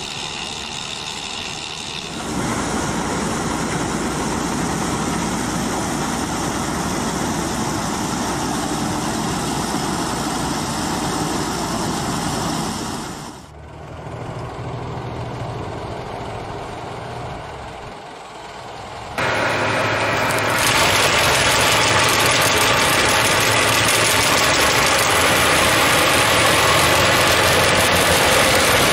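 Tractor engine and a tractor-drawn peat harvester with its elevator conveyor running steadily, with a quieter stretch of low engine hum about halfway through. Then, for the last third and loudest, a Meri Crusher MJS-241 DTG-S brush crusher on a Valtra S274 tractor grinding through brush and stumps.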